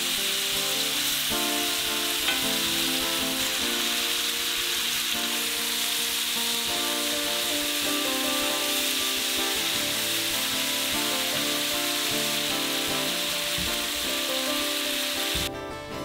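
Diced pears sizzling steadily in a cast-iron skillet as they are stirred with a wooden spoon, with instrumental music playing under it. The sizzling cuts off shortly before the end.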